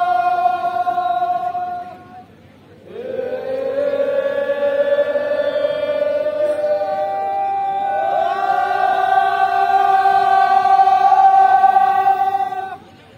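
A group of voices chanting together in long held notes. The chant breaks off about two seconds in, a new note slides up into place about a second later, steps up higher about eight seconds in, and stops just before the end.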